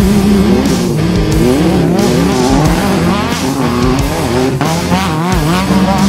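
Off-road race buggy engine running at high revs, its pitch rising and falling over and over as the throttle works through rough ground. Music plays underneath.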